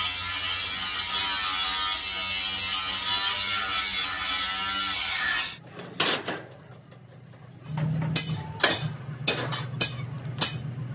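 Electric angle grinder grinding a steel truck-body panel, running steadily and cutting off abruptly about five and a half seconds in. After that come a few sharp metal knocks and, from about eight seconds in, a low hum with clicks over it.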